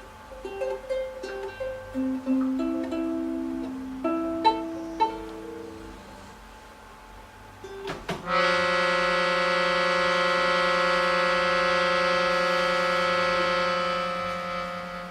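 Improvised live music on small instruments: scattered short plucked and struck notes at changing pitches, then, about eight seconds in, a loud held chord on a free-reed instrument that lasts about six seconds and fades out.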